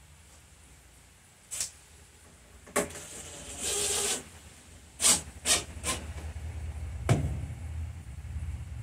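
Wooden parts and tools handled on a workbench: about six sharp knocks, three of them close together about five to six seconds in, with a brief hiss a little before the middle. A low steady hum comes in about seven seconds in.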